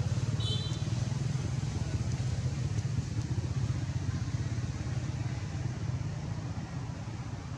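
Steady low rumble of an engine running, like a nearby motorbike or vehicle, easing slightly toward the end. A brief high chirp sounds about half a second in.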